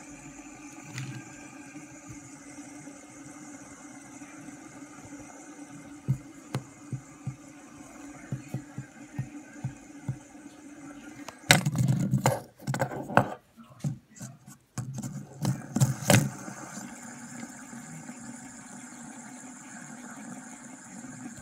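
Fidget spinner spinning on a table with a steady whir. A run of light clicks comes about six seconds in, then several seconds of loud, irregular noise in the middle before the whir settles again.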